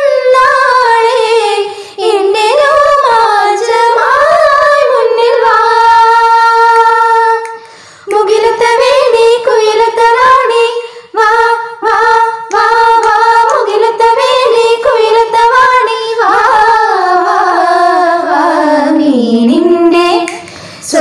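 Women singing Malayalam songs unaccompanied, a cappella, into a clip-on microphone, with short breaths between phrases.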